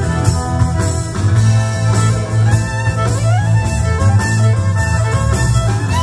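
Upbeat fiddle tune played on violin, its melody sliding up and down between notes, over a steady beat and heavy bass accompaniment.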